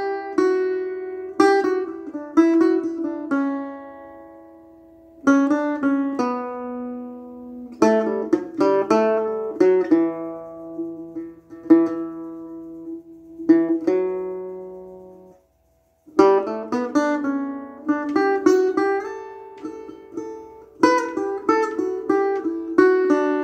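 Acoustic guitar playing an original tune in E Dorian in standard tuning: phrases of plucked notes and chords that ring and fade away. There is a brief silent break about two-thirds of the way through, then the playing resumes.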